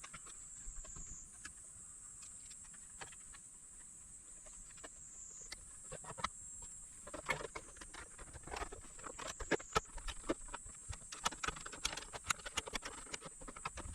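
Light irregular clicks and taps of a portable power station's parts and casing being handled and put back together, sparse at first and much busier about six seconds in, over a faint steady high hiss.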